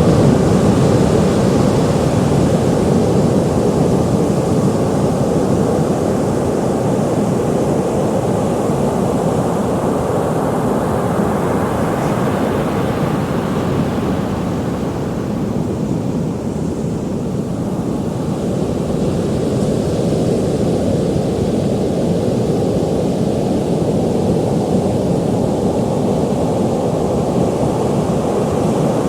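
Ocean surf: waves washing onto the shore in a continuous deep wash of noise that eases a little past halfway, then builds again.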